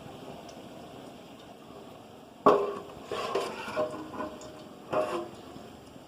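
Kitchen utensils knocking against cookware: a sharp clank about two and a half seconds in that rings briefly, a few lighter clinks, and a second clank near the end.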